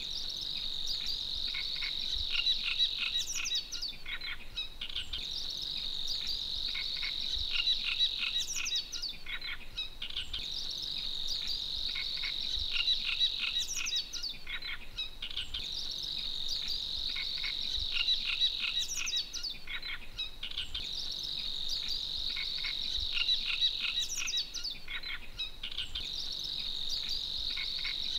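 Birds chirping over a steady, high insect trill. A cluster of chirps comes back about every five seconds.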